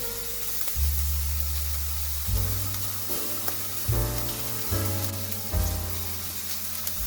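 Food sizzling steadily as it fries in a hot pan, with small crackles throughout. Background music with a slow bass line plays over it.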